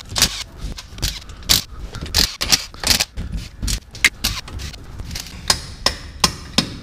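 Metal hand tools clinking, knocking and scraping against a truck's rear axle: irregular sharp taps, a few a second.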